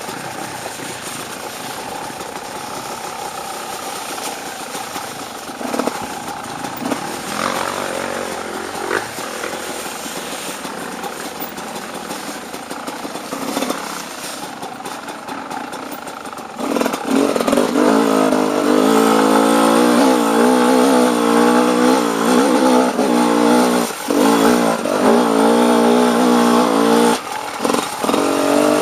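Dirt bike engine running on a trail ride, moderate at first, then much louder from about two-thirds of the way in, with a strong pitched note that wavers up and down as the throttle is worked and dips briefly twice near the end.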